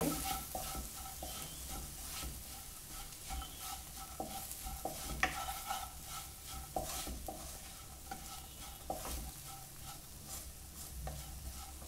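A wooden spatula stirs and scrapes chopped cluster beans around a nonstick wok, mixing in chilli powder, with irregular scrapes and light knocks. The beans sizzle in the oil underneath.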